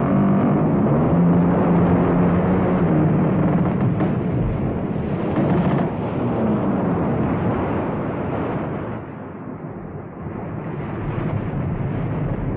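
Haunted-house sound effect from a Halloween record: a dense, rumbling roar with low wailing tones that glide up and down, easing off briefly about nine seconds in before swelling again.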